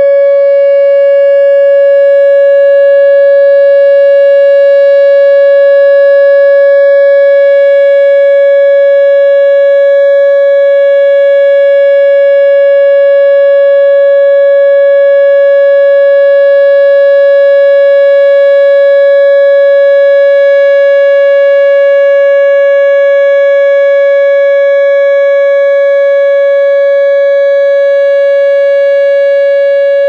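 Whelen WPS 2908 electronic outdoor warning siren sounding a loud, steady tone held at one pitch, during the full three-minute test of a nuclear power plant's siren system.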